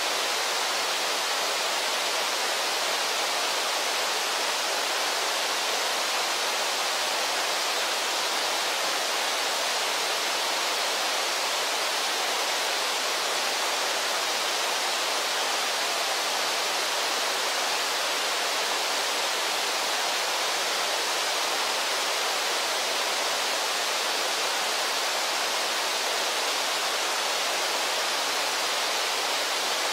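Steady, unbroken rush of river water pouring over a waterfall and rapids.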